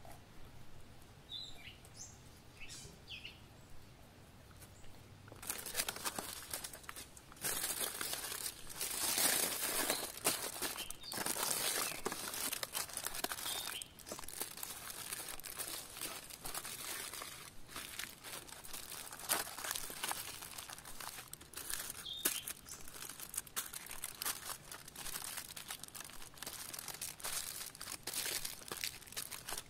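Aluminium foil crinkling and crumpling loudly as it is wrapped and pressed around a whole raw chicken, starting about five seconds in and going on in bouts with short pauses. A bird chirps a few times before the wrapping begins.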